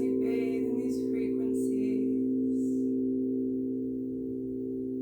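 Singing bowls sounding a steady chord of several sustained tones, with a soft voice speaking over it during the first half.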